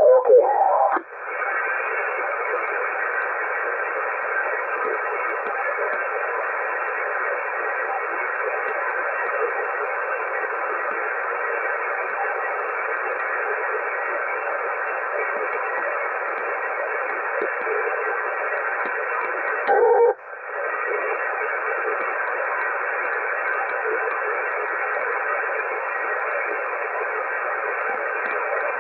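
Steady static hiss from a two-way radio receiver's speaker, thin and band-limited, while the channel carries no voice. A short louder burst and a brief break in the hiss come about a second in and again about 20 seconds in.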